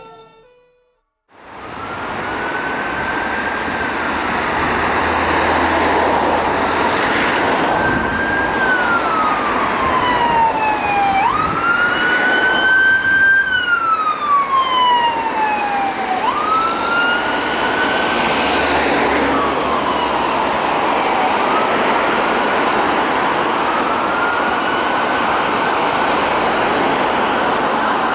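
An emergency ambulance siren on a Renault Master ambulance sounds a slow wail. Its pitch rises and falls in long sweeps of about four to five seconds each, over road traffic noise. The siren starts a little over a second in, after a brief gap.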